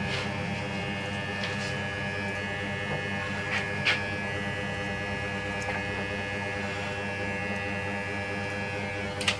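Barber's scissors snipping through short hair, a few sharp snips with the loudest about four seconds in, over a steady electric hum.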